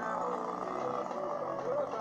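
Background music with a singing voice.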